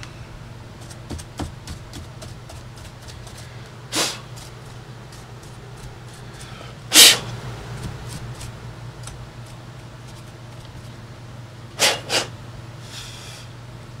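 Dust being cleared from a laptop's chassis: light brush ticks and handling with a few short puffs of air, about four and seven seconds in and a quick double near the end, over a steady low hum.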